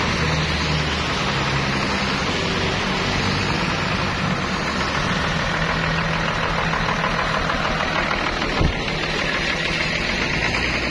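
Diesel engine of a bare Hino RK bus chassis running steadily as the chassis rolls slowly past on a wet road, with a constant hiss from the tyres and spray. There is a single knock near the end.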